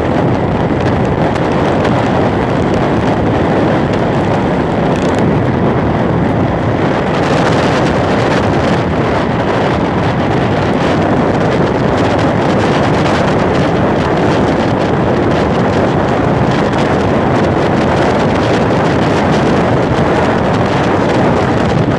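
Wind buffeting the microphone over the steady running of a small boat's two-stroke Yamaha outboard motor cruising at constant speed.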